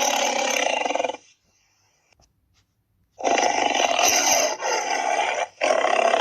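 Tyrannosaurus roar sound effects. One roar stops about a second in; after about two seconds of silence a second long roar begins, and a third follows it after a brief break near the end.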